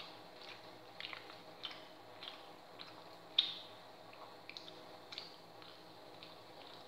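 Someone eating: small wet clicks and smacks of chewing, coming irregularly about every half second, the loudest about halfway through. A faint steady hum runs underneath.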